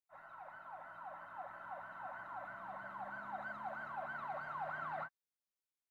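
Siren-like wail, a quick falling sweep repeated about three times a second. It grows louder gradually, then cuts off suddenly about five seconds in.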